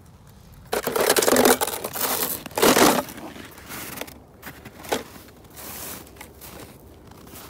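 Snow crunching and crumpling, with two loud rough bursts about one and three seconds in, then lighter, irregular crunches.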